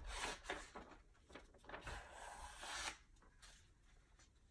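Faint rustling and rubbing of a folded sheet of letter-sized paper as fingers run along the fold to crease it sharply. The sound stops about three seconds in.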